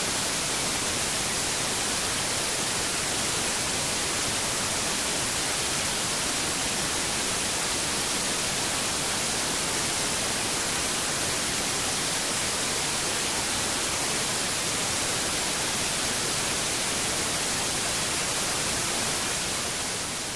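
A steady, even hiss, strongest in the high end, with no distinct knocks, tones or voices in it. It fades out near the end.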